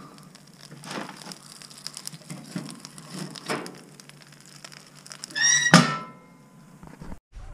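Wood-fired cast-iron cookstove being tended: a few light knocks and thumps at the open firebox. About six seconds in, the firebox door is shut with a loud metallic clang that rings briefly.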